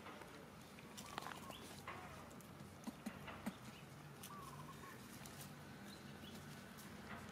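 Long-tailed macaques give a few brief, faint squeaks, with one wavering call about four and a half seconds in. Scattered clicks and rustles in dry leaf litter come around the middle.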